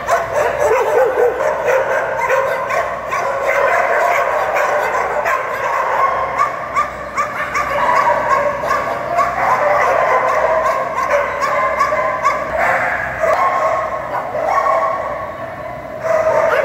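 Many kennelled dogs barking and yipping over one another in a continuous din, easing briefly near the end.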